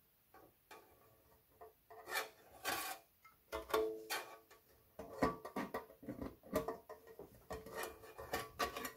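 Sheet-metal power supply cover being handled and fitted onto the case: irregular scrapes, knocks and clicks, with a short metallic ring about four seconds in. The handling gets busier from about five seconds in.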